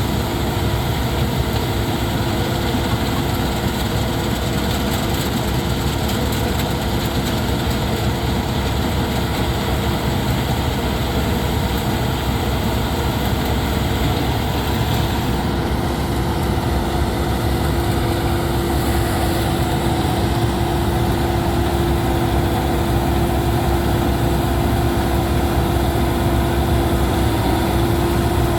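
Laverda Fiatagri 3790 combine harvester running steadily under load, its diesel engine and machinery making a continuous drone. A steady hum in it grows stronger about halfway through.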